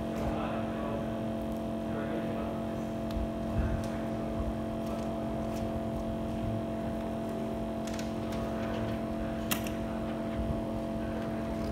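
Steady machine hum made of several constant tones, with a few light clicks over it, the sharpest about nine and a half seconds in.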